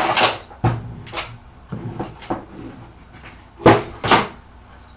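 Makeup products clattering in a storage bin as they are put away and knocked over: a string of separate knocks, the two loudest close together near the end.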